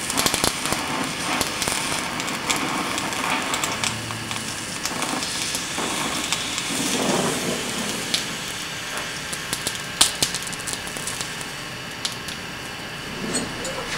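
Oxy-fuel gas welding torch hissing steadily while welding steel, with crackles and snaps from the weld and a sharp crack about ten seconds in.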